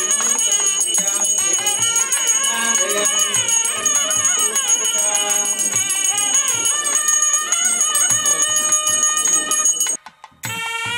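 Music: a wavering melody over a steady jingling bell rhythm. It cuts off abruptly about ten seconds in, and after half a second of silence a different piece starts with long held notes.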